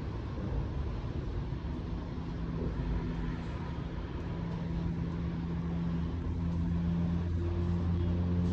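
Low rumble with a steady mechanical hum that grows stronger and louder through the second half.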